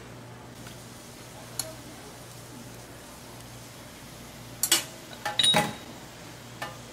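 Metal tongs clacking against a flat steel griddle as raw pork belly strips are laid down: one click early, a quick cluster of sharp metal clanks about five seconds in, and one more click near the end, over a steady low hum.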